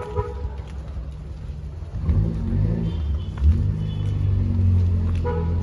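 A motor vehicle's engine running close by with street rumble; it gets louder about two seconds in and its pitch wavers as it revs.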